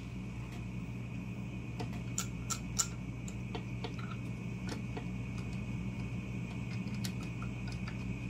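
Scattered sharp clicks of an oscilloscope's front-panel push buttons and knob detents being pressed and turned, a few close together about two to three seconds in, over a steady low hum and a faint high whine.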